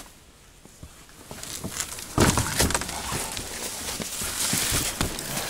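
A heavy whitetail buck carcass being heaved and dragged onto cardboard in a vehicle's cargo bed: a thump about two seconds in, then scraping, rustling and shuffling as the body is pulled into place.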